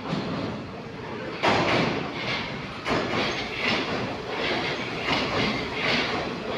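Metro train pulling into the station along the platform, its wheels clattering in a steady rhythm of pulses a little under a second apart. It gets suddenly louder about a second and a half in, as the cars reach the platform.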